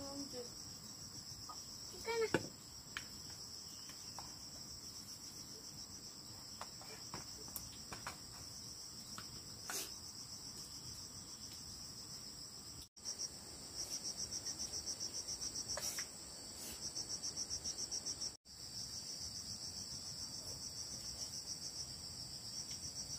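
Insects, cricket-like, trilling in a steady high chorus that pulses rapidly and grows stronger in the second half, broken by two brief dropouts.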